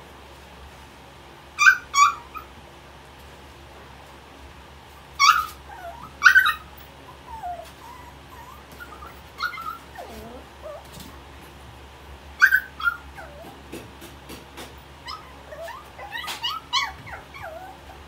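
Puppy yipping and whining: several pairs of sharp, high-pitched yips, with softer falling whines between them.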